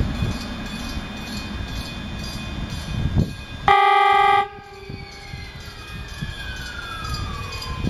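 Ex-Tokyu 7700 series electric train sounding its horn once, a short steady blast of under a second, about halfway through, over the low rumble of the train pulling away; a faint whine slowly falls in pitch after the blast.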